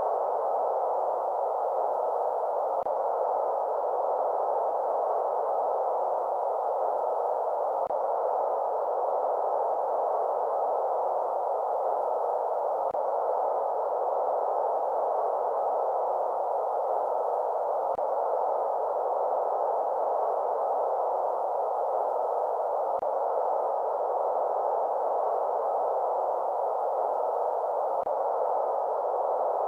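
Steady electronic white noise, a smooth, even hiss concentrated in the middle range with little bass or treble, unchanging in level.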